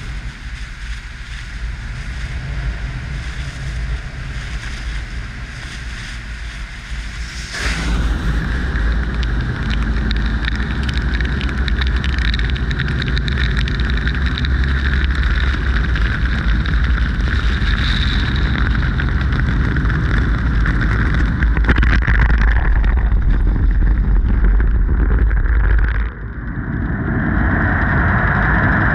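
Soft-touch car wash machine (D&S IQ) working over a car, heard from a camera on the car: water spray and spinning foam brushes swishing and splashing against the body and the camera, with a low rumble throughout. About seven seconds in it gets suddenly louder as the brushes reach the car. Near the end the sound dips for a moment and a steadier whirring drone of the dryer blowers takes over.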